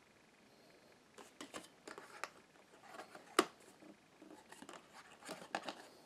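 Cardboard doors of an advent calendar being handled and flipped: a run of light, irregular clicks and scrapes of card starting about a second in, with one sharper click about halfway through.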